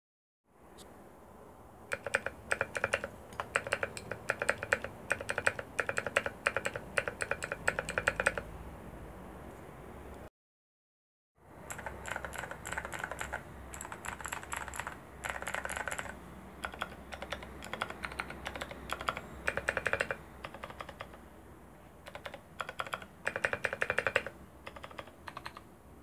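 Typing on a CIY Tester68 mechanical keyboard with clicky Outemu Blue switches: rapid runs of sharp key clicks in bursts with short pauses between them. The sound drops out completely for about a second near the middle.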